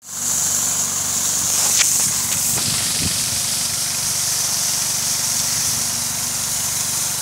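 Water jetting from a garden hose and spraying over a lawn in a steady hiss, over a steady low motor hum.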